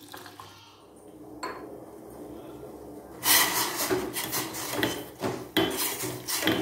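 Water pouring softly onto crushed jaggery in a steel bowl, then a metal spoon scraping and clinking around a steel pan, stirring jaggery into water to dissolve it, in repeated strokes that start a little past three seconds in.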